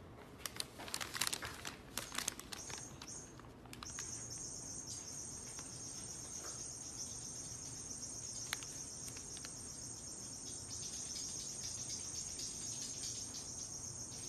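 Paper bag rustling and crinkling with small clicks over the first few seconds, as the bag is handled over the cat's head. From about two and a half seconds in, a faint steady high-pitched tone holds.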